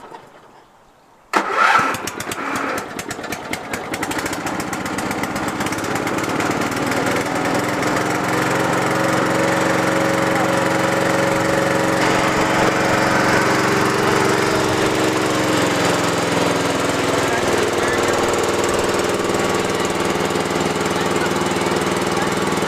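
Early-1990s Murray riding lawn mower engine. It comes in suddenly about a second in, runs roughly for the first few seconds, then settles into a steady run, its pitch dropping a little about two-thirds of the way through.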